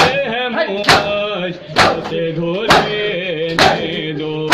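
Male voices chanting an Urdu nauha (Shia lament), with held, wavering sung lines. Rhythmic chest-beating (matam) keeps time: a sharp hand slap on the chest a little under once a second.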